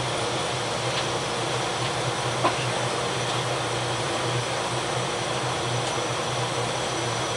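Steady machinery noise of a steam frigate's engine room heard from its control station: an even hiss with a low hum underneath, and a couple of faint clicks.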